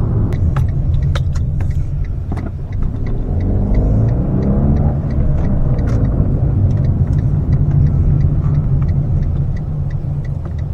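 Fiat Panda 4x4 on the move, heard from inside the cabin: a steady low engine and road rumble, with the engine note rising and falling about four to five seconds in. Scattered light clicks and rattles run over it.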